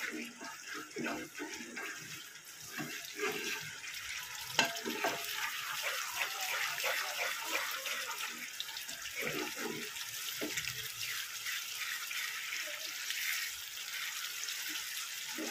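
Spiced yogurt masala sizzling in oil in a pan, with a spatula scraping and stirring through it. This is the frying stage, where the yogurt's water is cooked off so the masala fries in the oil.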